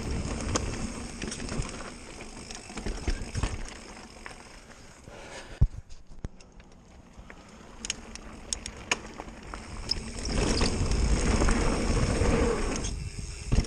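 Mountain bike riding fast down a dirt trail: tyres rolling and crunching over dirt, with the bike rattling and clicking over bumps and wind rumbling on the action camera's microphone. It goes quieter about halfway through, then grows louder again near the end.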